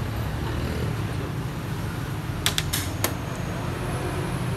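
About four quick, sharp clicks around the middle, as xiangqi pieces are knocked on the wooden board during a capture and the chess clock is pressed. Under them runs a low, steady street-traffic hum.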